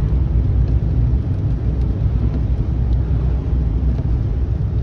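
Steady low road rumble of a moving car, heard from inside the cabin as it drives along a highway.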